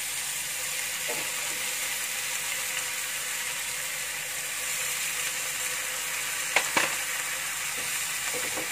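Water poured into a hot wok of stir-fry sizzling loudly and steadily as it hits the pan. About six and a half seconds in come two sharp knocks on the pan.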